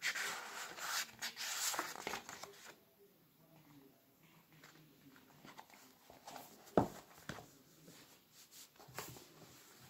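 Paper pages of a book rustling as they are flipped for the first few seconds, then quieter handling clicks and one sharp knock about seven seconds in as the book is closed and set down on the table.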